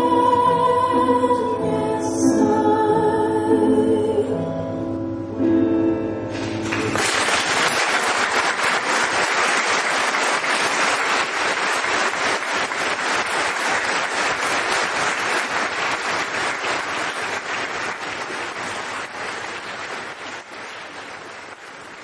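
A woman singing the closing held notes of a ballad into a microphone, with piano accompaniment, ending about seven seconds in. An audience then applauds, the clapping slowly fading near the end.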